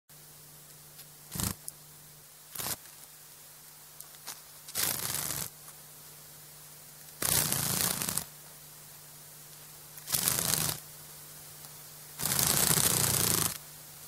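Dragonfly wings fluttering in repeated bursts: two brief flutters, then four longer passes of about half a second to a second and a half each, the longest near the end.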